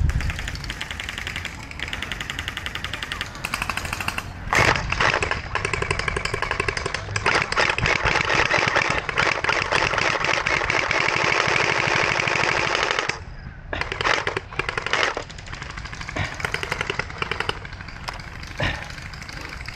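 Electric gel blasters firing full-auto in rapid clattering bursts: several short bursts, one long burst lasting several seconds in the middle, then more short bursts near the end.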